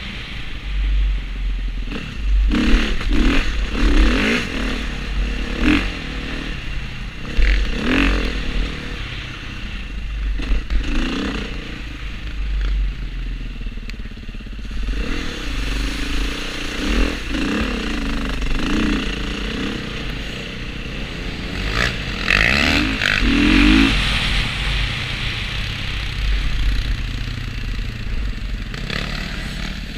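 Dirt bike engine heard from a helmet-mounted camera, its pitch rising and falling repeatedly as the rider rolls on and off the throttle over a rough dirt track. Low rumble and scattered clattering knocks from the bike over the bumps run under the engine.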